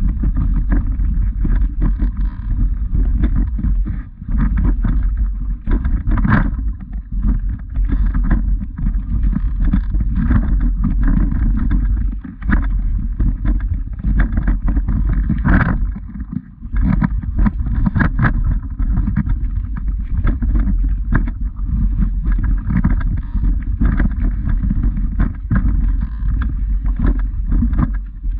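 Steady low rumble of wind on the microphone of a body-worn camera, with footsteps on a loose stony path clicking through it.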